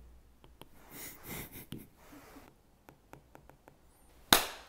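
Apple Pencil tip tapping lightly on an iPad's glass screen while writing, a string of small clicks, with a soft breathy sniff or exhale about a second in. Near the end comes one loud, sharp hand clap.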